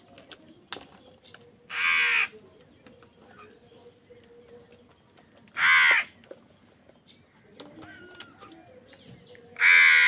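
House crows cawing: three loud, harsh caws of about half a second each, spaced about four seconds apart, the last near the end.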